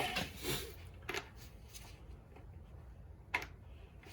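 A few faint, sharp clicks and taps of a tool being handled, over a low steady hum. A louder noise cuts off right at the start.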